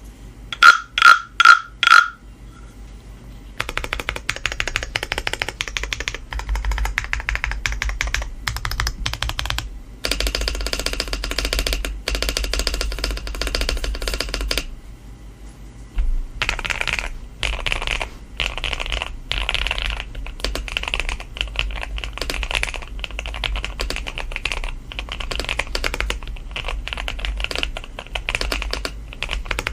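Typing on a Keychron Q5 aluminium 98-key mechanical keyboard, modded with a PC plate, Poron sandwich foam, bottom foam and a plastic middle frame: a dense, continuous run of keystrokes with a short pause about halfway. Four short beeps sound just before the typing starts.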